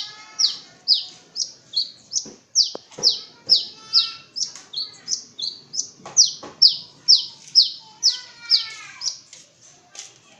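Long-tailed shrike (pentet) singing: a rapid string of sharp, high notes, each falling in pitch, about two a second, with a few lower slurred notes in between.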